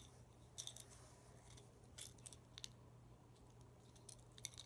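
Near silence with a few faint, light clicks and taps as a plastic Tech Deck fingerboard and its stand are handled, over a low steady hum.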